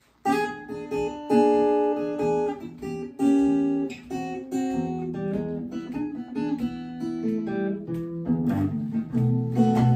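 Acoustic guitar playing a short blues intro pattern: a run of ringing notes and chords, with a steady low bass note pulse coming in near the end.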